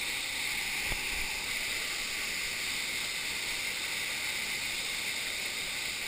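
Steady rush of a small waterfall pouring into a pool, with a light knock about a second in.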